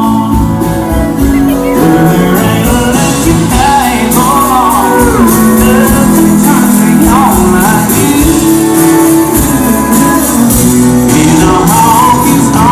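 Loud country music: a band playing with a singer over a steady beat.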